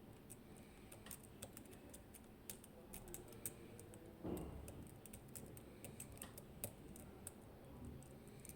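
Faint, irregular small clicks of a lock pick working the pins inside a Medeco M4 lock cylinder, with a slightly louder scrape about four seconds in.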